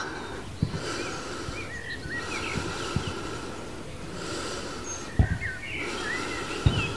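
A woman's slow, deep breathing close to the microphone, coming in soft swells about a second long, with birds chirping around her. A few soft low thumps, the loudest about five seconds in.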